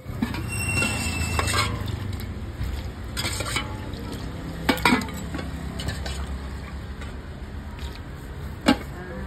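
Wooden pestle knocking and a metal spoon scraping and stirring wet som tam ingredients in a clay mortar. There are a few sharp knocks, the loudest about halfway and near the end, over a steady low hum.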